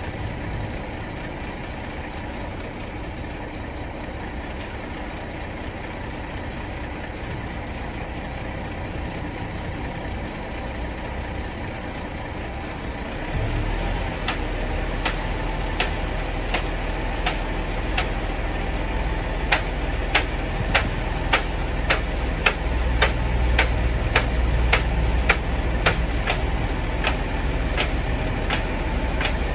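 Car transporter truck's diesel engine idling. About 13 seconds in, the running gets louder and heavier, and a regular series of sharp clicks begins, about one to two a second, while the trailer's deck controls are worked.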